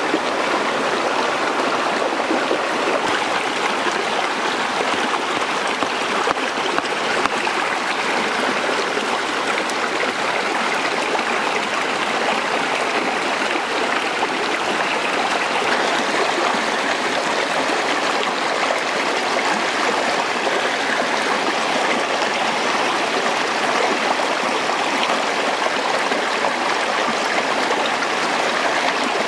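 A shallow stream running steadily over rocks, an even rushing of water throughout.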